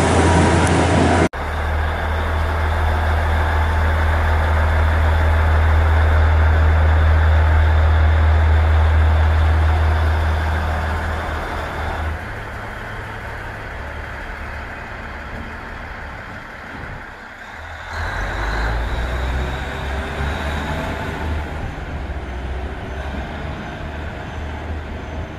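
KiHa 110 series diesel railcar pulling out of a station platform: a loud, steady low engine drone eases off after about twelve seconds as the railcar moves away. The first second holds a different loud noise that cuts off abruptly.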